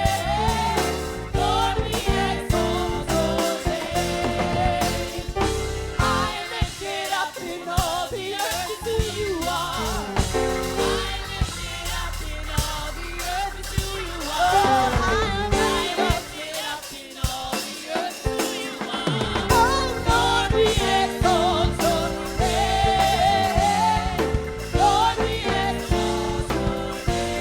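Gospel worship music with singing voices over a band with bass and drums.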